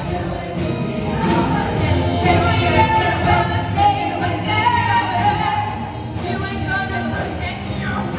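A musical theatre song played on a backing track, with a group of voices singing over it.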